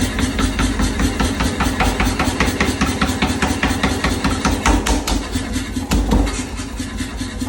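A 20 kg (45 lb) blacksmith's power hammer running, its ram striking in a fast, even rhythm of several blows a second over a steady motor hum.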